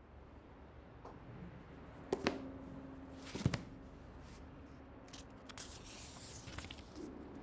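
Faint room ambience with two sharp knocks, about two and three and a half seconds in, and some light rustling later on.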